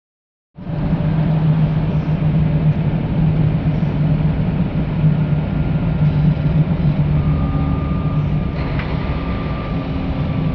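Mercedes-Benz OC 500 RF coach's OM 457 LA inline-six turbodiesel running steadily, cutting in abruptly about half a second in, with a low, even hum.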